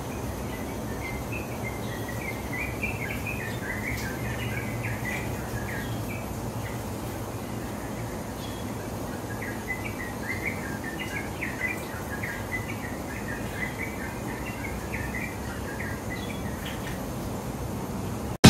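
Small birds chirping in two runs of quick, short notes, the first starting about a second in and the second about nine seconds in, over steady outdoor background noise.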